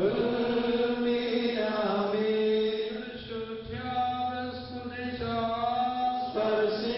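Malankara Orthodox liturgical chanting: voices singing a slow chant in long held notes that glide between pitches, a little softer midway.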